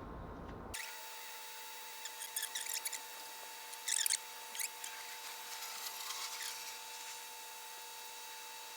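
Scattered small clicks and scratchy rubbing from hands working small metal engine parts during a two-stroke trimmer cylinder and piston rebuild, over a faint steady whine.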